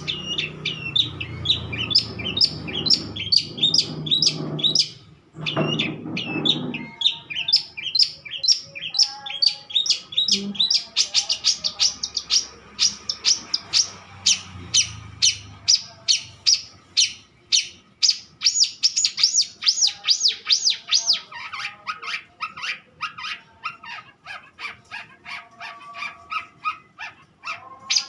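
Long-tailed shrike (cendet) singing continuously, a long unbroken run of sharp repeated chirps at about three a second.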